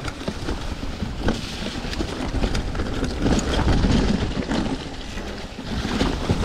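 A mountain bike rattling and knocking over a rough dirt trail while riding, with wind buffeting the microphone.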